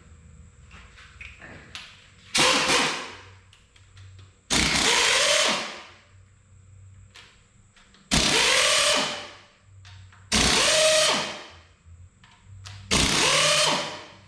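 Cordless power tool run in five short bursts, each a second or so long, its motor pitch rising and then falling away each time. It is loosening the cylinder head bolts on an IH Cub engine.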